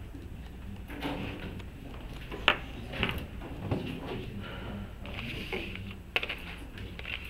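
Papers rustling and being handled on a lectern and desks, with a few sharp knocks, the loudest about two and a half seconds in, over a steady low room hum.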